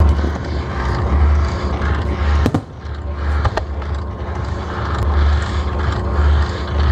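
Ground-level fireworks set off in rapid succession like landmines: a continuous deep rumble of many bursts running together with crackling, and a few sharper bangs about two and a half and three and a half seconds in.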